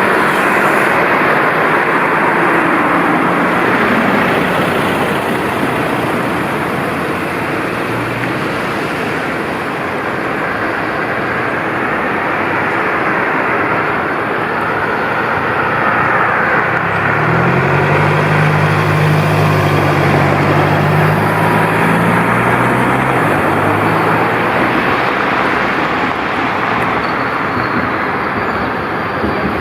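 Steady street traffic noise, with an arriving tram's electric drive adding a low humming tone that steps in pitch for several seconds in the middle.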